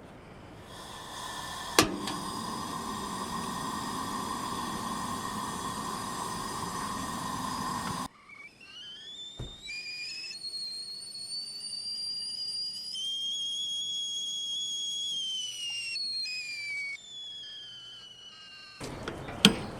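A steady hiss with a hum and a single click, which cuts off about eight seconds in and gives way to a high whistle that glides up, holds with a few small jumps in pitch, then falls away.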